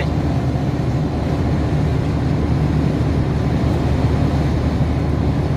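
Steady drone of a truck's diesel engine and road noise heard inside the cab while driving, a deep even rumble with no change in pace.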